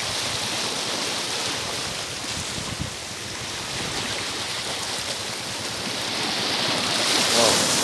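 Shallow sea water washing and lapping in small choppy waves, a steady hiss that swells slightly near the end.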